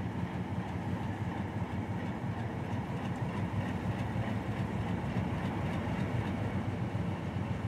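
MLW RS-18u diesel-electric locomotive rolling slowly across a road crossing: a steady low diesel engine sound mixed with wheel-on-rail noise.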